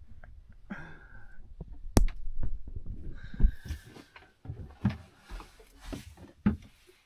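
A sharp click about two seconds in, then a series of separate soft knocks and clunks as provisions are handled and lockers opened in a small wooden boat cabin.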